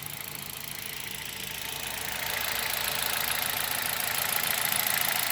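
Hyundai Solaris petrol engine idling steadily with a knock that a switch to 5W-40 oil has not cured. It grows louder about two seconds in.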